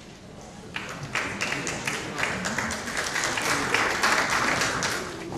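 Audience applauding: the clapping starts about a second in and dies away near the end.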